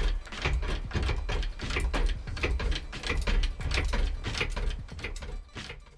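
Hydraulic floor jack being pumped by its handle, metal clicking and rattling with a low clunk at each stroke, repeating about every second and dying away near the end.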